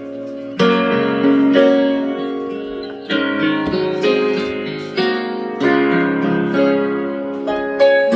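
Instrumental music, plucked-string and piano-like notes each struck and left to ring, played through an ELEGIANT SR200 USB-powered mini soundbar during an audio test.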